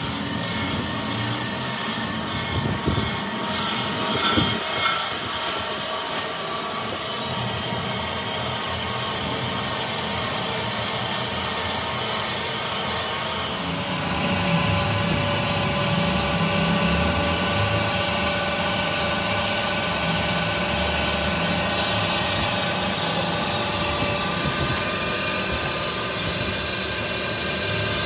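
Workshop tool work on diesel engine parts: steady rubbing and scraping for the first half, changing abruptly about halfway through to a steadier machine sound with a few held tones.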